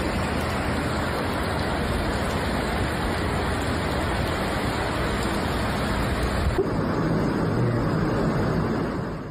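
Rushing muddy floodwater, a steady dense rush of water. About two-thirds through there is a sudden change to a torrent of a flooded river, with the rush going on but less hissy.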